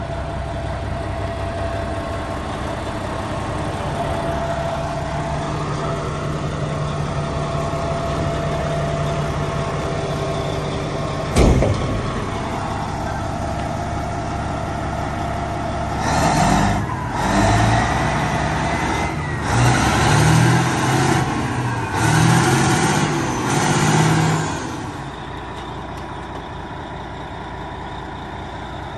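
Cat 657E scraper's diesel engine running steadily, with one loud clank about a third of the way in. In the second half the engine surges about five times in quick succession as the machine drives off the lowboy trailer, then settles back to a lower running sound.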